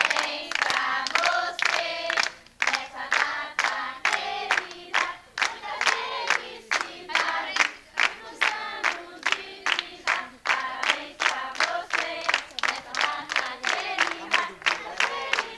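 A group of people singing together and clapping along in a steady rhythm, about two to three claps a second.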